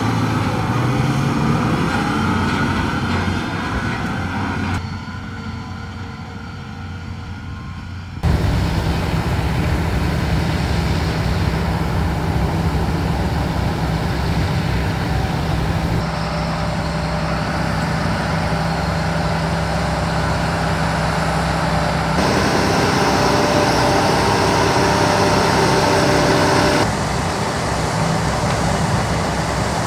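Large tractors and potato harvesters running and working, with steady engine tones. The sound shifts suddenly several times, and there is a quieter stretch a few seconds in.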